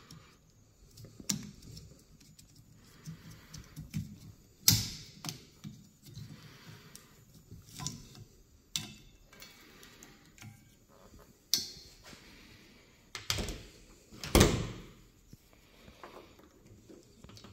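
Plastic clicks and knocks from a wiper blade and its connector being unclipped from the wiper arm and handled. The clicks come at irregular intervals; the loudest are about five seconds in and near fourteen seconds.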